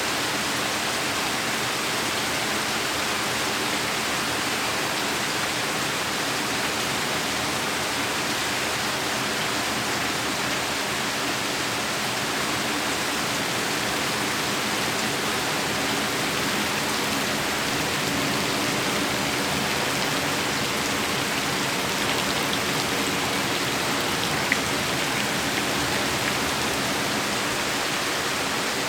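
Heavy rain falling steadily, a dense, even hiss of drops, with one sharp tick near the end.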